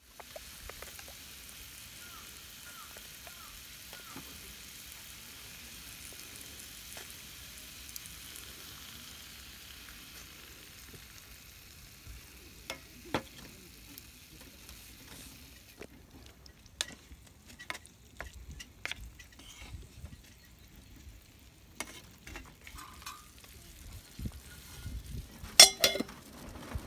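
Minced meat and onion sizzling in an iron skillet, stirred with a wooden spatula that scrapes and knocks against the pan. About two thirds of the way through the sizzle dies down and leaves scattered scrapes and taps. Near the end comes one loud metallic clank as the lid goes onto the skillet.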